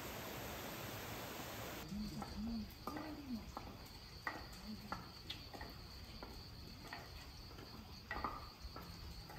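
Insects trilling on a steady high note on a summer night, with scattered light clicks and taps; the first two seconds are only an even hiss before it cuts in.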